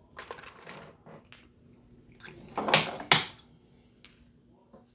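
Light metallic clicking and clinking of bullets and brass cartridge cases being picked up and handled, then two sharp clacks about half a second apart near the middle.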